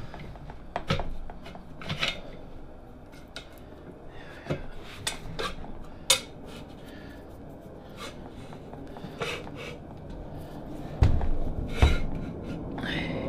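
Cast-iron drill press casting and steel pillar being handled and slid together: scattered metal clinks, scrapes and knocks, with two heavier thuds about eleven and twelve seconds in and a brief squeak near the end.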